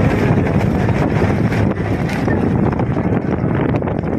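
Steady wind noise buffeting the microphone, a dense low rumble without any distinct events.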